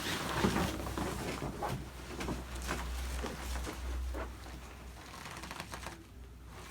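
A person shifting and turning over on a padded chiropractic treatment table, with rustling and short creaks and taps. A low hum sounds under it for about the first four seconds, then stops.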